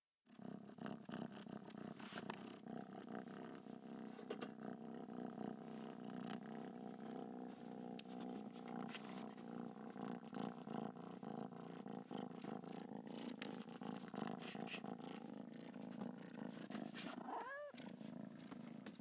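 Domestic cat purring steadily, with a short, quiet meow near the end.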